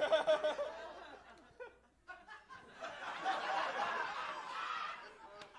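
Comedy club audience laughing at a roast punchline. The laughter breaks off briefly just before two seconds in, then swells again and fades.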